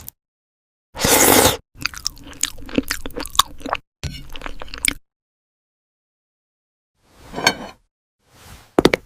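Close-miked crunching and chewing of a crunchy cookie, heard as separate bursts: a loud burst about a second in, about three seconds of crackly crunching, a pause, then another burst and a few sharp clicks near the end.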